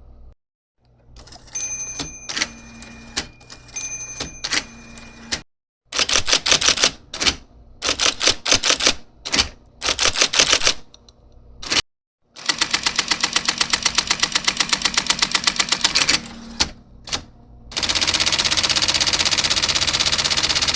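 IBM Selectric III electric typewriter typing, its motor humming under the strikes. Single keystrokes come first, then quick bursts of typing. Later come long, fast, even runs of strikes like a machine gun, the typewriter repeating a character.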